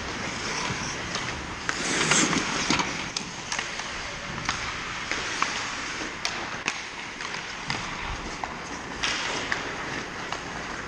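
Ice hockey play: skate blades scraping on the ice, with many sharp clacks of sticks and puck and a couple of louder scraping swells. Players' voices call out faintly now and then.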